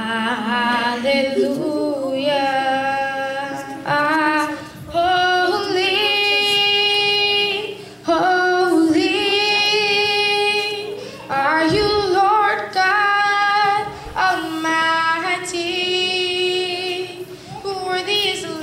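A woman singing a slow melody solo, holding long notes in phrases a few seconds long with short breaks between them.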